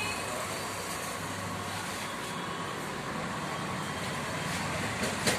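Steady background noise of road traffic, with a brief sharp click near the end.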